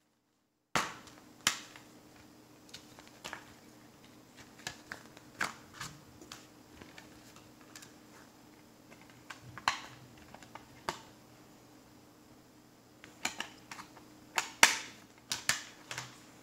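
Clicks and snaps of a clear plastic Blu-ray keep case being opened and handled, its hinged disc tray flipped and the discs knocking in their hubs. The clicks start about a second in, scattered, with a quicker run of sharper snaps near the end, over a faint steady hum.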